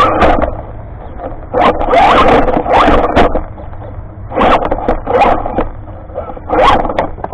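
Radio-controlled car driving over rocks in repeated short bursts of throttle: its motor and gears whine, rising and falling in pitch, over scraping and clattering of the wheels and body on the stones, with quieter gaps between the bursts. Heard from a camera mounted on the car itself.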